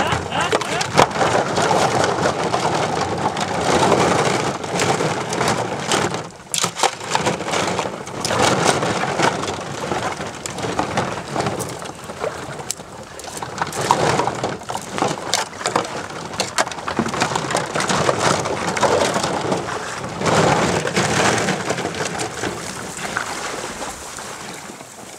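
Hollow plastic duck decoys clattering and knocking together, with their anchor cords rustling and shallow water splashing around them as they are gathered and bundled by hand. The noise comes in surges every few seconds and fades out near the end.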